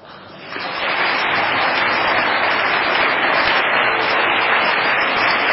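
Congregation applauding, building up over the first second and then holding steady.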